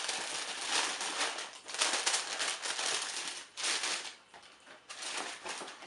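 Tissue paper crinkling and rustling as a sneaker is packed back into its shoebox, busiest through the first four seconds and fainter after.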